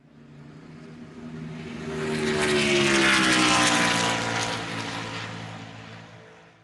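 NASCAR stock car passing by at speed: the engine note swells to a peak about three seconds in, drops in pitch as the car goes past, and fades away.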